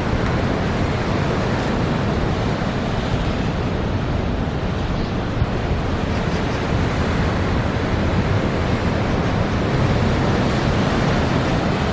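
Heavy storm surf breaking against coastal rocks in a continuous, steady wash of noise, with strong wind buffeting the microphone.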